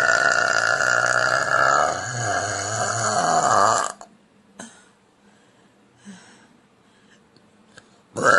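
A woman's long, loud burp that wavers in pitch in its second half and cuts off about four seconds in. A second burp starts right at the end.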